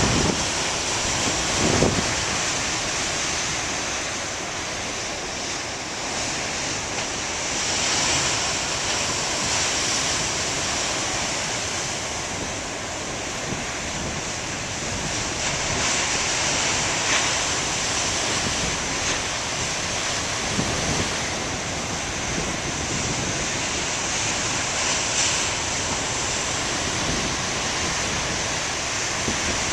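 Ocean surf breaking and washing up a beach, a continuous rush that swells and eases every several seconds as waves come in. Wind buffets the microphone now and then.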